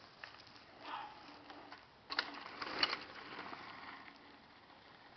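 A mountain bike passing close by on a dirt trail: its tyres rolling over the dirt and the rear freewheel hub ticking rapidly. It is loudest about two to three seconds in, then fades.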